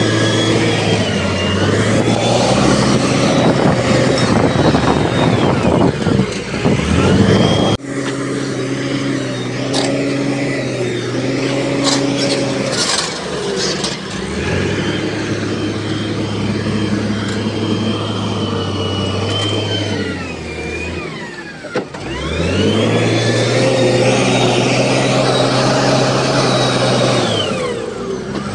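Diesel engine of heavy earthmoving machinery revving up, holding under load and dropping back, several times over, with a high whine that rises and falls with it. The sound breaks off suddenly twice, about 8 and 22 seconds in.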